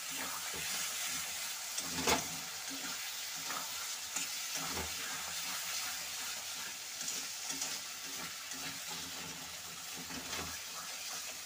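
Metal spatula stirring and scraping prawns and potatoes around a metal kadai, over a steady sizzle of the masala frying down, with a sharper clack of the spatula on the pan about two seconds in.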